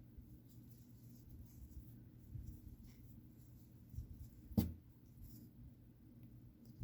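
Faint scratching and rustling of a plastic ergonomic crochet hook working through yarn, with one sharp click a little past the middle.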